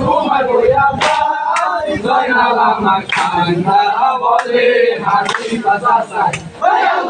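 A group of men chanting and singing loudly together in unison, with shouted calls and a few sharp strikes among the voices; one participant describes it as a mourning observance.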